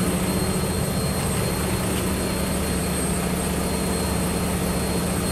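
Steady low drone of an idling diesel semi truck engine, a constant hum under an even rushing noise.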